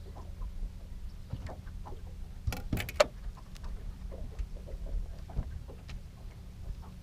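Fishing gear handled on a boat deck: a quick cluster of sharp knocks about two and a half seconds in, with small scattered ticks over a low steady hum.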